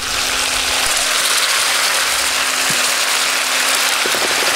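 Sliced yellow tomatoes tipped into a hot pot of onions, garlic and cashews frying in oil, setting off a loud, steady sizzle that starts as they go in.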